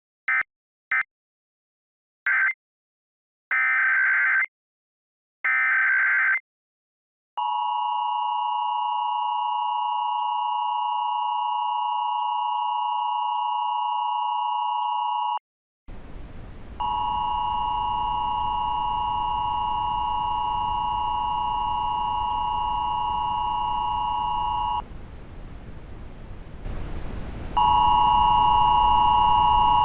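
Emergency Alert System tones. First come a few short, screechy bursts of digital header data. Then the steady two-tone attention signal runs for about eight seconds. After a short gap the attention signal sounds again over a hiss, breaks off, and starts again near the end.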